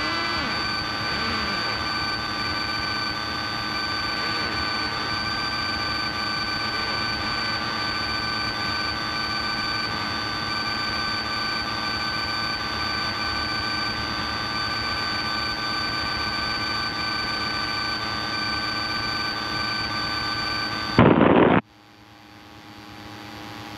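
Steady drone of a small single-engine piston airplane's engine and propeller, with several constant high whining tones over it. About 21 seconds in there is a short, louder burst, then the drone cuts off abruptly, leaving a quieter hiss that slowly swells.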